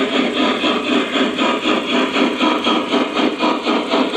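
O-scale model Union Pacific Big Boy steam locomotive running past, its sound system giving an even, quick chuffing of about three to four beats a second.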